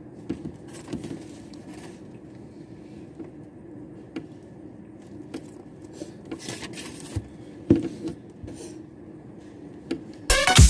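Quiet room tone with a faint low hum and scattered small clicks and rustles of handling. Loud electronic music cuts in suddenly near the end.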